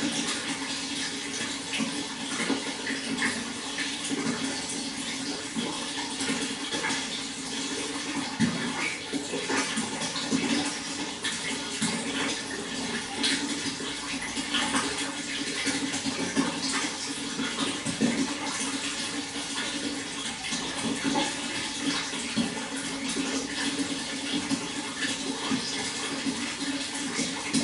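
Water flowing steadily, with constant small splashes and gurgles.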